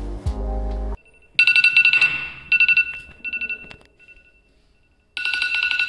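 Music cuts off about a second in, and an iPhone alarm rings: bursts of rapid high beeps that fade, a short pause, then the beeping starting again near the end.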